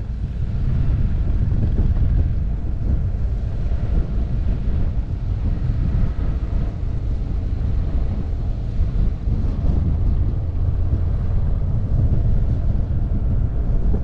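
Wind buffeting a motorcycle-mounted camera's microphone during a ride, a steady low rumble, with the motorcycle's engine running underneath.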